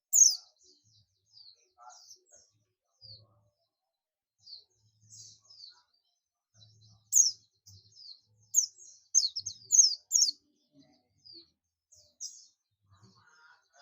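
White-eye (Zosterops, 'pleci buxtoni') calling: scattered short, high, thin chirps, many of them sharp downslurred notes, with a quick run of loud ones about seven to ten seconds in.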